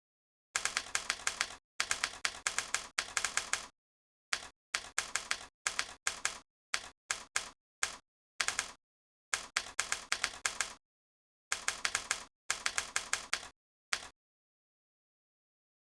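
Mechanical-keyboard keystroke clicks played back by the Kinbo typing-sound app, coming in quick runs of typing with abrupt, dead-silent pauses between runs.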